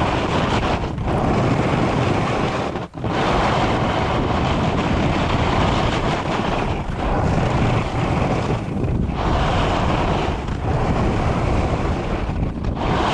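Wind rushing over an action camera's microphone while a splitboard slides and scrapes down crummy late-season snow, the board's base and edges hissing through the surface. The rush eases briefly several times, with one sharp drop about three seconds in.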